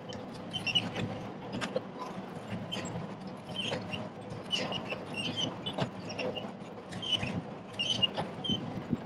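Sany SY50U mini excavator digging: its diesel engine running steadily under load, with scattered clanks and knocks of the bucket and arm working the soil.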